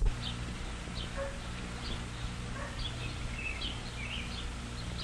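Small birds chirping in short, high calls, several a second, some sliding down in pitch, over a steady low hum. A single thump comes right at the start.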